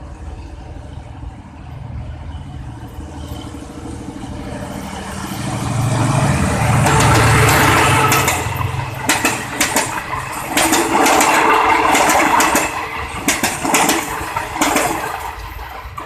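Diesel passenger train passing close by. The GEK diesel-electric locomotive's engine rumble grows to its loudest about 6 to 8 seconds in, then the coaches rattle past with rapid clicks of wheels over rail joints, fading near the end. A container freight train runs past steadily behind it.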